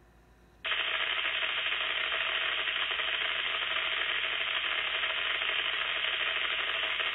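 Uniden SDS100 scanner's speaker opening suddenly about half a second in on a steady hiss of static with no voice traffic: the scanner has stopped on a birdie, a channel carrying only interference rather than a real transmission.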